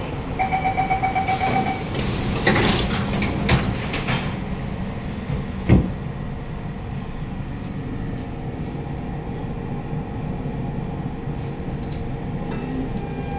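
Door-closing chime of a Siemens C651 metro train, a rapid beeping at two pitches for about a second and a half. The doors then slide shut with a noisy rush and a sharp clunk about six seconds in, followed by the steady low rumble of the train.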